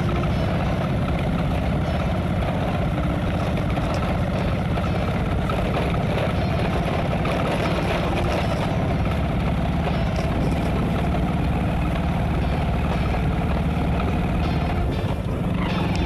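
Motorcycle engine running steadily under load as the bike climbs a hill road.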